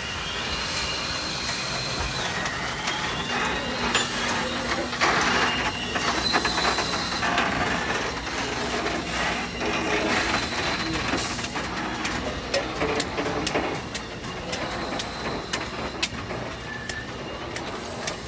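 Norfolk & Western J Class 611 steam locomotive standing in steam, giving a steady hiss and mechanical running noise. In the second half sharp ticks come about twice a second.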